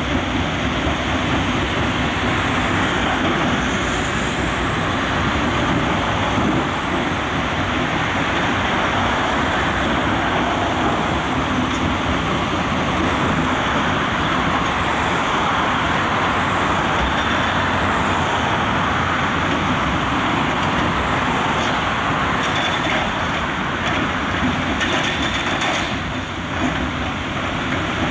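Heavy machinery running: a mobile rock crusher and a Komatsu PC360LC excavator's diesel engine and hydraulics working rock beside it, a steady dense machine noise with no pauses.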